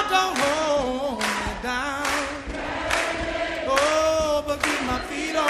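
Background song: sung vocals with vibrato over a steady beat.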